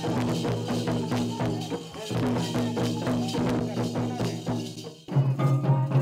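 Tribal festival music led by traditional drums: several drums beating a quick, even rhythm under a held melody. It breaks off about five seconds in and another piece starts with a deeper steady tone and a hand-played barrel drum.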